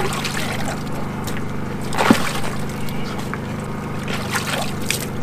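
Water sloshing and splashing in a tub as largemouth bass are lowered into it by hand, with one sharp splash about two seconds in, over a steady low hum.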